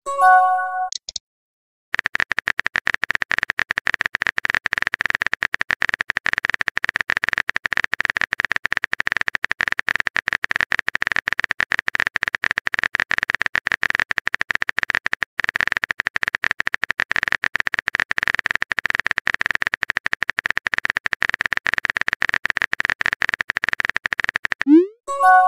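Phone keyboard typing sound effect: a fast, continuous patter of key clicks. A short message-notification chime with a rising sweep sounds near the end.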